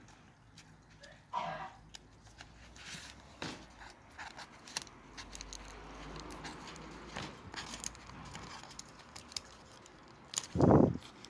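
Small clicks, taps and rustles of a smartphone and its cardboard box being handled as the phone is lifted out, with a short squeak about a second in and a brief loud thump near the end.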